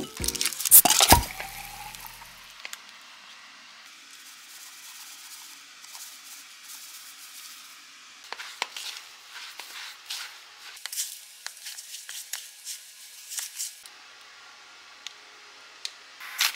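A few sharp, loud noises in the first second or so. Then a spatula mixing cream cheese and sugar in a plastic bowl: soft squishing and scraping with scattered light clicks, busiest in the middle. A short louder noise comes near the end.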